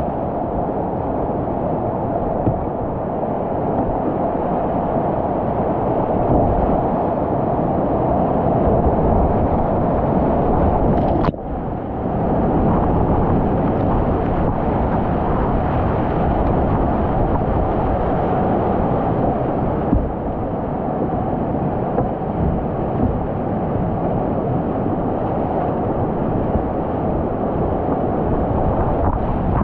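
Whitewater rapids rushing steadily around a kayak, heard from the boat itself in the middle of the rapid. There is a brief click and a short drop in level about eleven seconds in.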